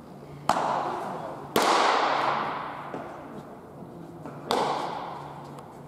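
Pitched baseballs smacking into catchers' mitts, three sharp pops with a long echo, the second one the loudest.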